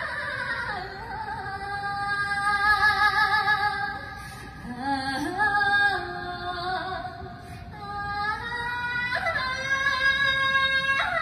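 A woman singing solo into a handheld microphone, holding long high notes with vibrato and swooping up into new phrases several times.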